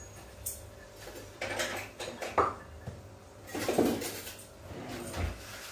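Kitchen utensils and dishes clattering in a few short bursts, with a dull thump near the end.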